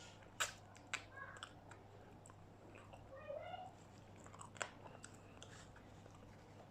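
Close-up chewing and crunching of crispy fried food, with a few sharp bites. There is a short rising tone about three seconds in.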